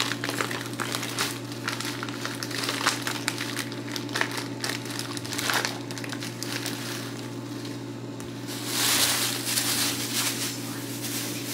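Plastic food packaging crinkling and rustling as it is handled, with scattered light clicks and knocks and a longer, louder rustle about nine seconds in, over a steady low hum.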